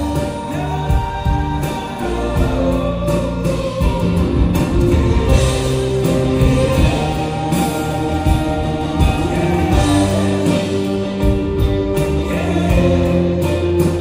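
Background music: a song with singing over guitar.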